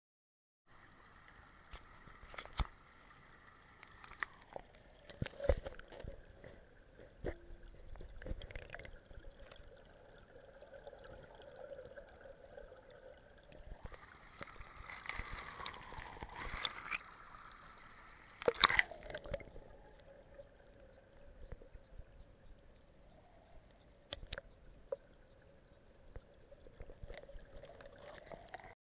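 Stream water heard through a camera submerged in it: muffled gurgling and trickling with a faint steady tone underneath and scattered knocks and clicks, the loudest knock about two-thirds in.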